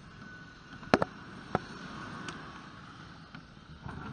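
A handful of sharp knocks and clicks from the kayak and its home-built pedal frame and camera mount being jostled as the kayak is moved on the sand. The loudest is a double knock about a second in, and all of them sound over a faint steady hiss.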